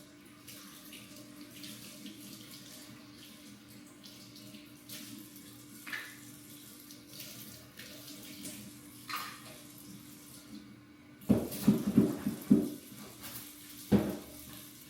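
Water running from a tap as a faint, steady hiss. From about eleven seconds in there are several louder knocks and clatters.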